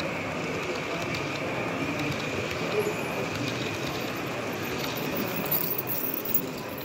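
Model train coaches rolling past close by on their track, a steady running noise.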